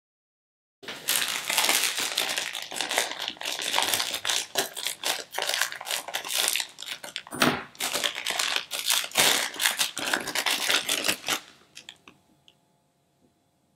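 Printed plastic toy pouch crinkling and tearing as it is opened by hand, a dense run of crackles and snaps that starts about a second in and stops near the end.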